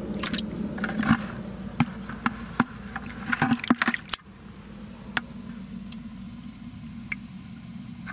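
Freshly caught bass being handled in a plastic bucket of water: a run of sharp wet slaps and knocks in the first four seconds, then only a steady low hum.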